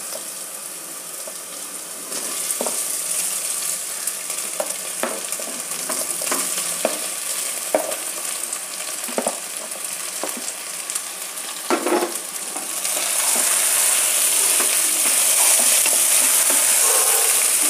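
Hot oil sizzling in a pan as chopped pieces of steamed rice-flour and greens dough are tipped into a tempering of mustard seeds, green chillies and onion, with a spatula now and then knocking and scraping the pan. The sizzle grows louder near the end as the pieces are stirred through the hot oil.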